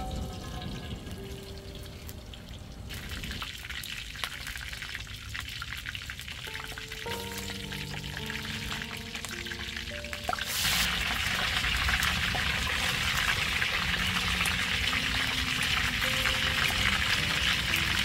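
Fish frying in hot oil: a faint sizzle that jumps about ten seconds in to a loud, steady sizzle, as when food goes into the oil. Soft background music with plucked notes plays under it.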